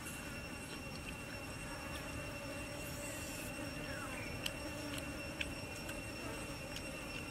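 Steady background drone of insects in a few high, thin, unchanging tones over an even noise, with two faint sharp clicks about four and a half and five and a half seconds in.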